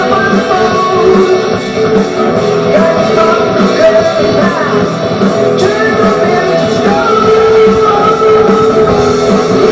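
Rock music with guitar and singing, a steady beat throughout.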